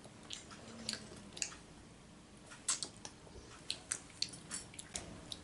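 A child chewing food, with faint, sharp mouth clicks at irregular intervals.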